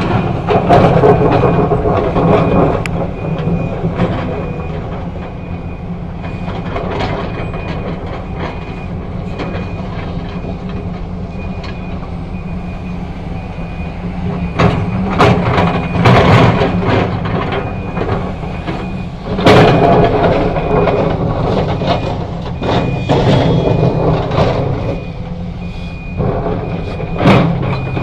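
Heavy diesel machinery, an excavator working with a dump truck, running steadily, with loud clanks and bangs several times, the loudest about two-thirds of the way in. A faint high beep repeats evenly throughout.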